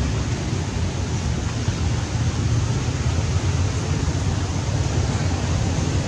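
Wind buffeting the microphone: a steady rushing noise with a heavy low rumble.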